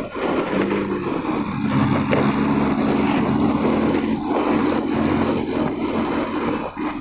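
Vehicle engine running at a steady pitch while travelling, under continuous wind and road noise.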